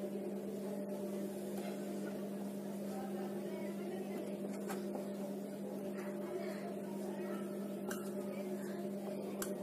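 Steady electrical hum, with a few faint scratches and taps of a marker writing on a whiteboard.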